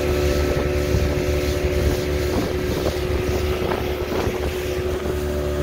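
Small motorboat's engine running at a steady cruising drone, with wind buffeting the microphone.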